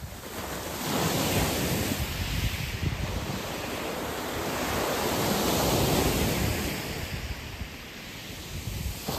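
Small waves breaking and washing up a shingle beach, swelling about a second in and again around five to six seconds in, with wind on the microphone.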